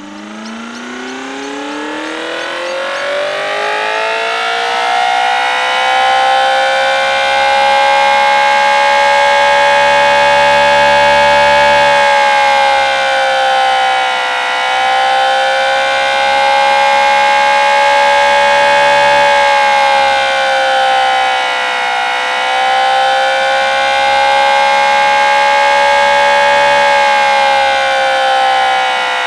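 Homemade 8/12-port mechanical siren spinning up: its two-tone wail, two notes a fifth apart, rises in pitch over the first few seconds, then holds steady at full speed of about 4500 RPM, sagging slightly in pitch a few times. A sheet-alloy ring pressed up against the stator holds back the airflow.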